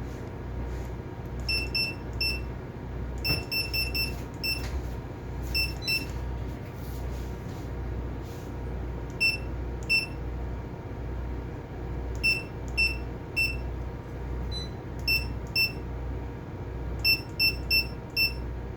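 Short, high electronic key beeps from the AIS unit's keypad as its buttons are pressed, some single and some in quick runs of three to five. Under them runs a steady low machinery hum with a slow, regular throb.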